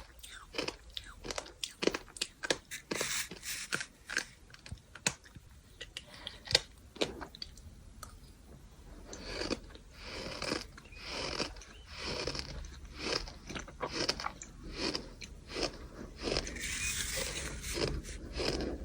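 Bird sand chewed close to the microphone: gritty crunching and crackling, sharp and fast at first, then softer, longer rhythmic chews from about halfway through.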